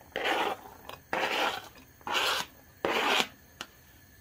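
Four rasping scrapes, about half a second each and roughly a second apart, as diced onion is scraped off a plastic cutting board into a pan.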